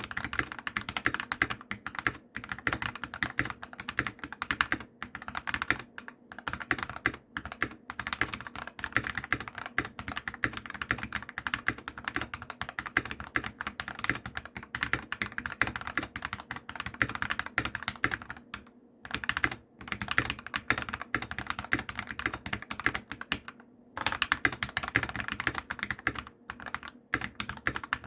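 SK87 mechanical keyboard with 55 g Aqua King switches and pudding keycaps being typed on fast and continuously, dense key clacks with a couple of brief pauses.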